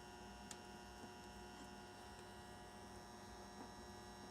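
Faint steady electrical hum, several even tones held without change, with a light click about half a second in.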